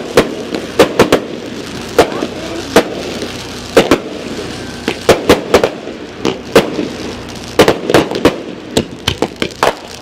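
Aerial fireworks going off: an irregular run of sharp bangs and pops, some coming in quick clusters of several reports.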